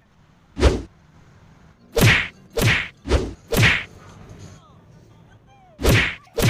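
Fight-scene punch and kick sound effects: a series of sharp swishing whacks, six in all, spaced unevenly, with another starting at the very end.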